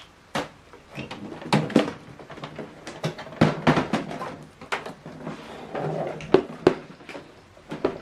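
Scattered clicks, knocks and rubbing as the back of a printer and a USB cable are handled.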